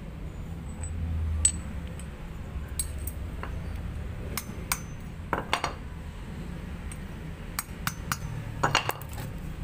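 Irregular sharp metallic clinks and knocks from a small motorcycle cylinder head and its valve being handled and knocked to work a stiff valve loose. The loudest knock comes a little over a second in, with a quick cluster near the end.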